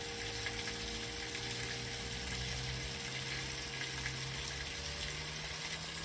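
Steady hiss of rain and water on a wet street, with the low hum of a vehicle slowly rising in pitch. The last faint hum of the church bell dies away underneath.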